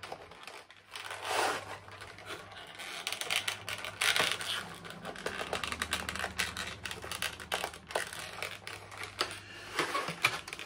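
Close handling noises: packaging rustling and crinkling, with many small irregular clicks and knocks as things are moved about on a table.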